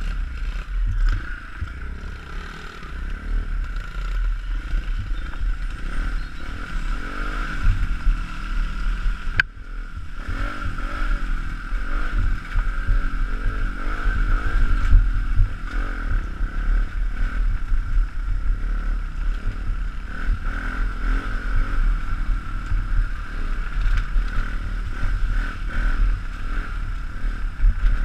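Pit bike's small single-cylinder four-stroke engine running and revving up and down while riding a rough track, heard from a helmet-mounted camera with heavy low rumble and buffeting over it. The sound breaks off briefly about nine seconds in.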